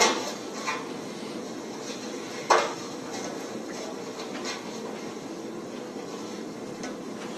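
A few sharp knocks: the loudest right at the start, a lighter one just after, and another about two and a half seconds in, over a steady hum of room noise.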